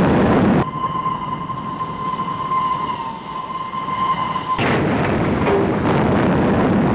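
Train-crash sound effects for an animated derailment: heavy rumbling and crashing of derailing coaches that cuts off under a second in. A steady high tone follows for about four seconds, and then a second burst of rumbling crashing impacts as the other train runs into the wreck.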